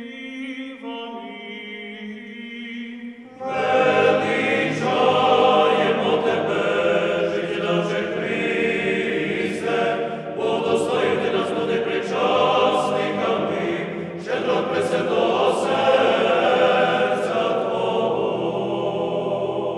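A single voice chanting on a sustained, steady pitch, then about three seconds in a church choir enters and sings unaccompanied liturgical chant in phrases with short breaths between them, as part of an Eastern-rite prayer service.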